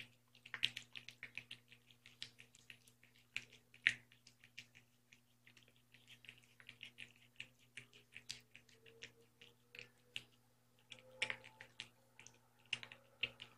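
Cat eating from a food dish: a string of faint, irregular wet clicks and smacks of chewing and lapping, with a few louder clicks now and then, over a faint steady low hum.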